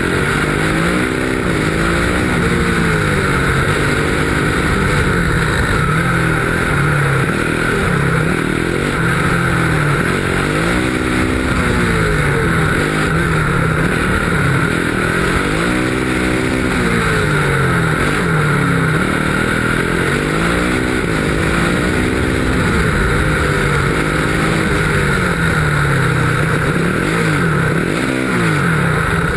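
Race car's engine on the move, its pitch rising and falling over and over every few seconds as it accelerates and backs off through the cone course, with steady wind and tyre noise underneath.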